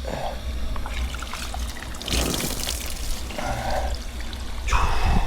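Running water pouring and splashing, the flow a little too strong, coming and going in a few surges.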